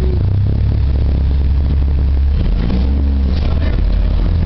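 Orion VI city bus heard from inside the cabin while under way: its Cummins L10G natural-gas inline-six engine and drivetrain running with a steady, heavy low rumble, mixed with road and cabin noise.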